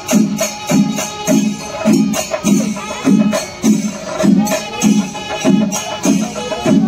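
Kerala temple festival percussion: drums and small cymbals playing a steady beat of about two strokes a second.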